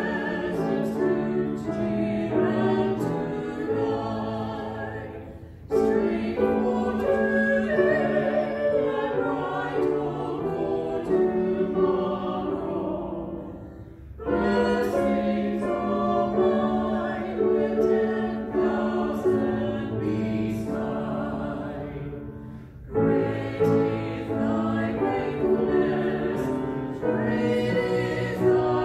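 A small mixed group of four voices singing a hymn together, in long phrases with a short break for breath about every eight seconds.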